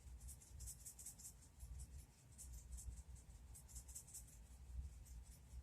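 Faint, rapid, scratchy ticks of pepper being dispensed over a roast, several a second with short pauses.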